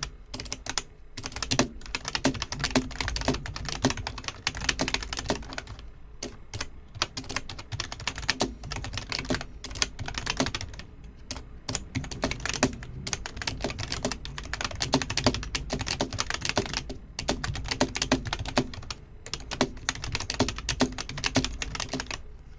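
Fast continuous typing on a Masione half-mechanical keyboard: a rapid stream of key clicks and spring-back, with a few brief pauses. The clicks are softer than a Cherry MX Blue and sound more like a Cherry MX Brown switch.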